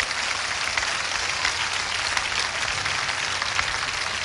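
A congregation applauding steadily, a dense patter of many hands clapping at once.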